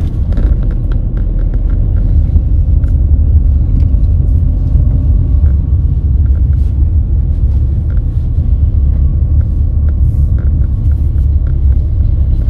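Road traffic: a loud, steady low rumble of vehicles, with scattered light clicks and knocks.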